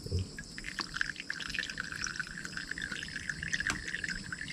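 Shallow stream water trickling and dripping, with many small ticks and rustles of hands handling the bait and hook line.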